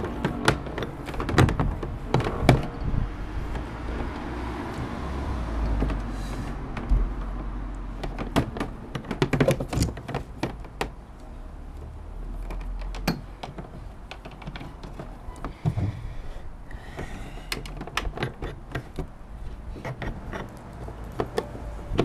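Sonar transducer cable being fed and pulled through a hole in a plastic kayak deck: the cord rubbing and sliding, with many scattered knocks and clicks against the hull.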